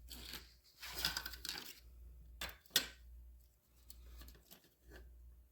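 A few light metallic clicks and short scrapes from a piece of sheet metal being handled and worked, with the sharpest ones about a second in and near the three-second mark.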